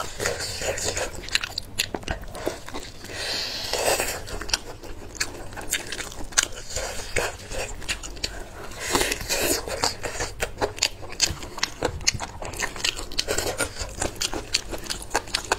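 Close-miked eating sounds: biting and gnawing on braised, chili-coated sheep's tongue, with many quick wet clicks and smacks and three longer, noisier stretches of tearing at the meat.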